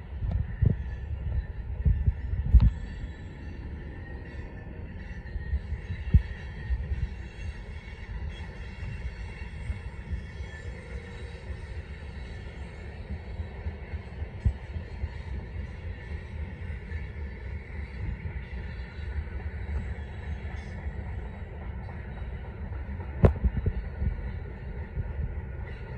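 Freight train's tank cars and covered hoppers rolling past on steel rails: a steady low rumble of wheels on track, broken by a few sharp knocks, the strongest in the first three seconds and again about 23 seconds in.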